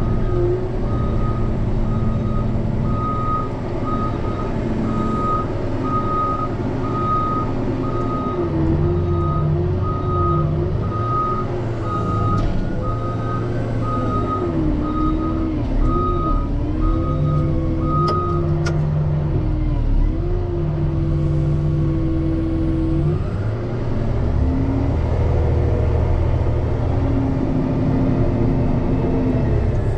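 Diesel engine of a wheel loader plowing snow, its pitch rising and falling as it works under load, with the reversing alarm beeping steadily until it stops about two-thirds of the way through.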